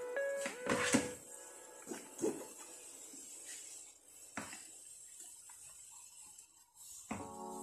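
A few soft knocks and wet splashes as whole green peppers are set down into a frying pan holding a shallow layer of water and oil. The loudest comes about a second in, with smaller ones later. Background music plays briefly at the start and again near the end.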